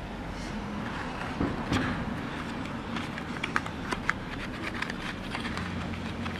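Handling noise as in-ear earphones with a braided cord are fumbled and packed into a small cardboard box: light clicks and knocks, a couple of louder ones about a second and a half in, then scattered small clicks later, over a steady low background hum.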